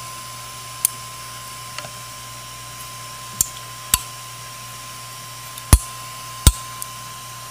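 A metal scraper blade prying under a 3D print's raft on the printer's build plate, giving about half a dozen sharp clicks and knocks, the loudest about three-quarters of the way through. A steady hum runs underneath.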